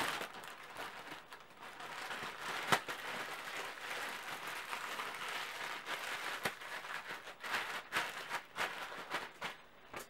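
Thin plastic shower cap crinkling and rustling as it is pulled over the head and fitted around the hair, with a few sharper crackles.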